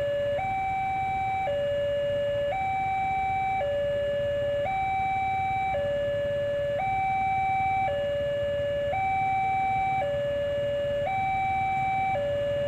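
Railway level-crossing warning alarm sounding a steady two-tone signal, a higher and a lower note alternating about once a second, warning that a train is coming. A low rumble runs underneath.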